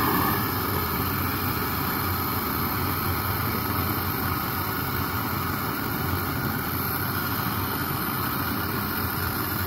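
Blowtorch flame burning with a steady roar.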